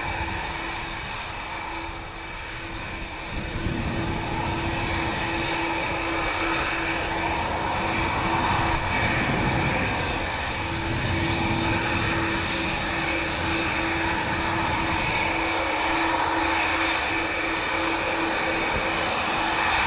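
Airbus A310 (CC-150 Polaris) twin turbofan jet engines at take-off thrust as the aircraft lifts off and climbs away: steady jet noise with a few steady tones in it, growing louder about three to four seconds in and then holding.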